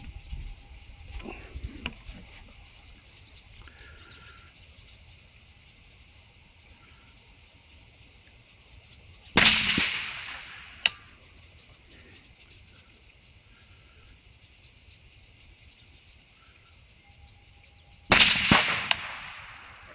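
Two rifle shots from a 6.5 Grendel AR-style rifle, one about nine seconds in and one near the end, each with an echoing tail and a fainter crack after it, fired at a steel plate at 100 yards. A steady high insect buzz runs underneath.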